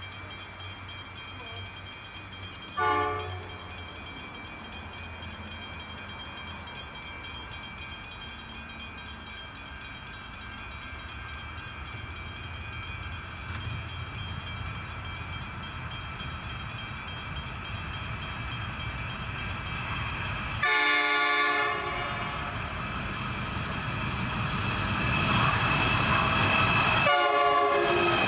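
Approaching freight train hauled by Pacific National NR class diesel-electric locomotives. Their engine rumble grows steadily louder as the train nears. The locomotive horn sounds three times: a short blast about three seconds in, a longer one of about a second around twenty-one seconds, and another short one just before the locomotives pass.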